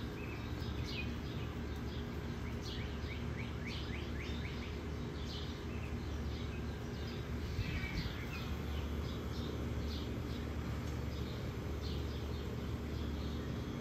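Small birds chirping over and over, short quick downward notes, over a steady low hum.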